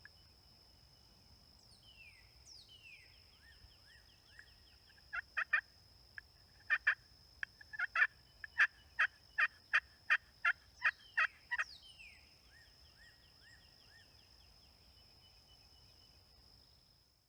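Woods before dawn: a steady high-pitched insect or frog trill, with a run of loud, sharp animal calls repeated about three times a second for several seconds in the middle, and a few falling whistled calls around it.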